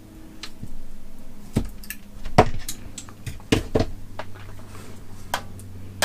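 Hand wire strippers clicking and clacking as they are worked on a battery lead's insulation: about seven sharp snaps spread over a few seconds, over a faint steady low hum.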